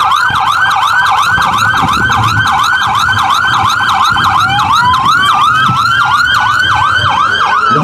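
Police vehicle sirens on a fast yelp, sweeping up and down about four or five times a second. About four seconds in, a second siren starts a slow rising wail.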